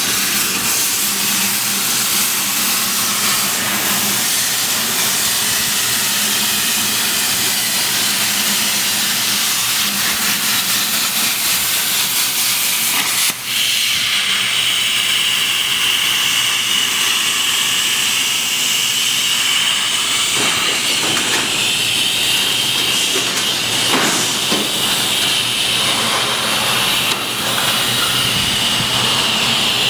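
CNC plasma cutter torch running with a loud, steady hiss. After a brief break about halfway through, a high steady whine joins the hiss.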